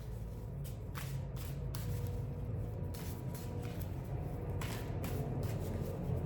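Street-cleaning work on concrete outside, heard as a steady low rumble of equipment that grows a little louder near the end. Short rustling swishes come and go over it.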